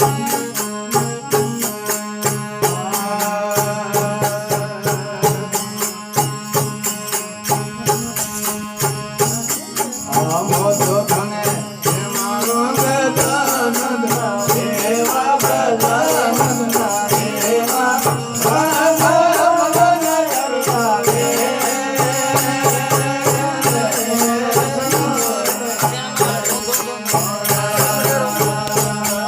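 Rajasthani folk devotional bhajan music without singing: a quick, steady rhythm of sharp metallic strikes, with a wavering melody line that enters about ten seconds in and fades out about twenty seconds in.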